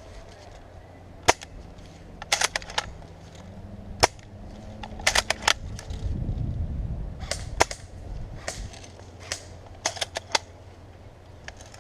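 Airsoft guns firing: scattered single shots and short quick strings of sharp cracks, with a low rumble in the middle.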